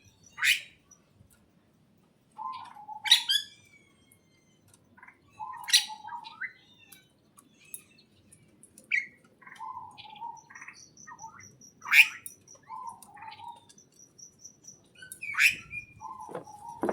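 Small birds chirping: loud, sharp chirps every few seconds with softer, lower warbling calls between them. A fast, high ticking trill comes and goes in the background.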